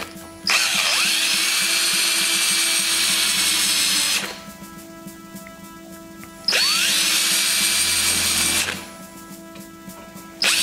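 Power drill drilling out the crimp divots that hold the end fitting on a throttle cable. It runs in two bursts, about four seconds and then about two seconds, each spinning up to a steady whine.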